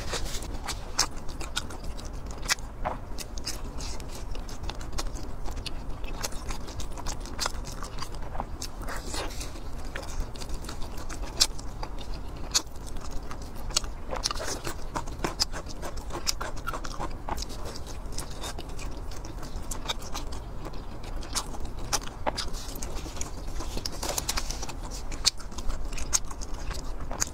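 Close-miked chewing and biting of meat, with irregular wet mouth clicks and smacks.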